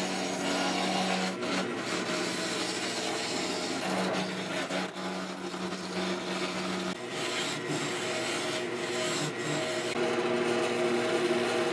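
Roughing gouge cutting a spinning maple blank on a wood lathe: a steady rough scraping of the tool peeling off shavings over the hum of the lathe. The sound changes about seven seconds in.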